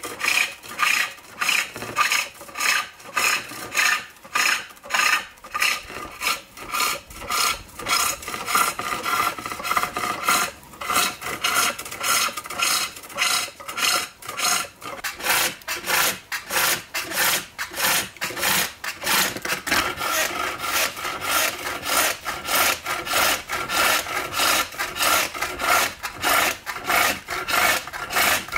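Hook tool cutting shavings from a wooden bowl turning on a pole lathe: a rhythmic scraping rasp that pulses with each stroke of the treadle, about twice a second, the pulses coming closer together and more evenly from about halfway through.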